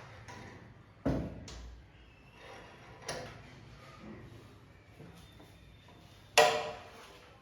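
Hard objects being handled and set down on a work surface: a sharp knock about a second in, a few lighter knocks, and a louder clunk with a brief ring near the end.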